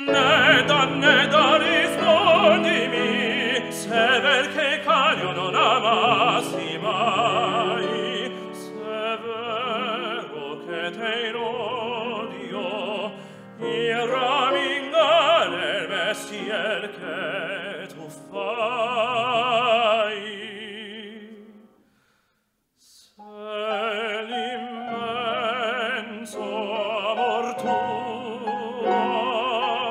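Male operatic baritone singing an Italian aria, with wide vibrato and held notes, accompanied by a grand piano. Voice and piano stop together for about a second some twenty-two seconds in, then go on.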